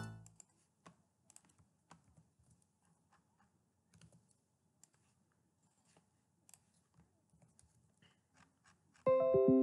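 Music playback cuts off at the start, leaving faint clicks of a computer mouse and keyboard. About nine seconds in a single synthesizer note sounds in FL Studio and rings out, decaying.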